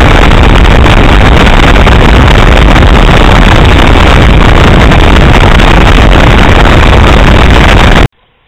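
Bass boat running at speed: very loud wind buffeting on the microphone over the outboard motor, one unbroken rush. It drops away suddenly near the end.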